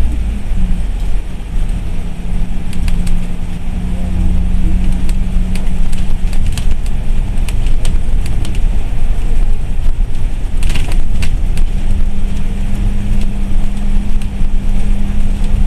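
Cabin noise inside a moving bus: steady engine and road rumble with a low hum that fades in the middle and comes back, and frequent small rattles and clicks from the bodywork.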